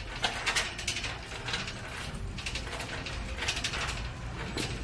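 Irregular clicking and rattling, a series of sharp clicks at uneven intervals.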